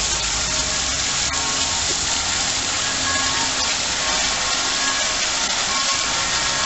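Fountain jets shooting up and splashing back into a shallow pool: a steady, even rushing hiss of falling water.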